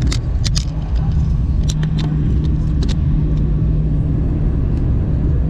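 Steady low rumble of a moving vehicle heard from inside, with a steady hum in the middle and scattered light clicks and rattles.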